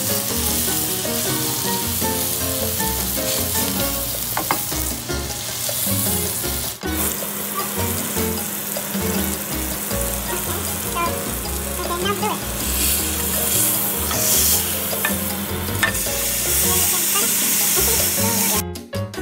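Ribeye steak frying in oil in a hot grill pan, sizzling and spitting steadily. Near the end the sizzling stops abruptly and music takes over.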